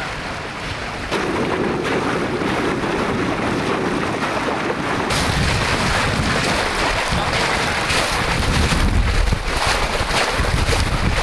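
Outboard motorboat under way on choppy water: wind buffeting the microphone over the rush of water along the hull, growing louder about a second in and again about five seconds in.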